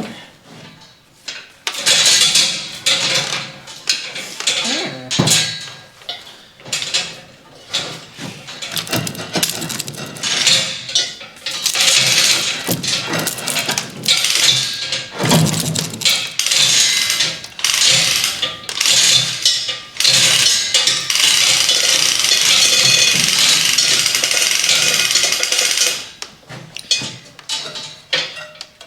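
Hand-tool work on metal winch parts: repeated irregular clanks, knocks and scrapes, then a steady rasping noise for about six seconds that stops near the end.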